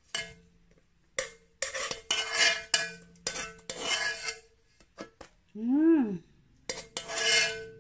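Spoon scraping and tapping inside a plastic food container in a series of short bursts as dried fish is scooped out. A brief rising-then-falling vocal sound comes about six seconds in.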